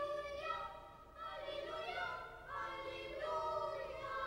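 Choir singing slow, held notes in short phrases, with brief gaps between them.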